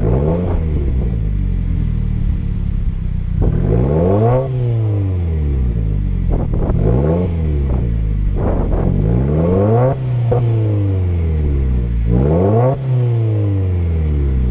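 2016 Subaru WRX's turbocharged 2.0-litre flat-four revved in park through a resonated 3-inch Nameless Performance midpipe and axle-back muffler delete: about five quick blips, each rising and falling back, held to about 4,000 rpm by the rev limit in park. Wind is on the microphone.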